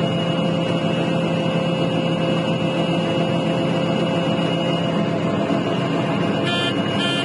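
Combine harvester running steadily with its unloading auger engaged, heard from inside the cab as an even drone with steady whining tones. Two short beeps sound near the end.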